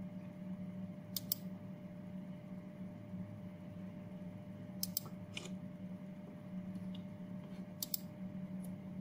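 A few sharp clicks at a computer, mostly in quick pairs: once about a second in, twice around five seconds, and again near eight seconds. Under them runs a steady low hum with a faint steady tone.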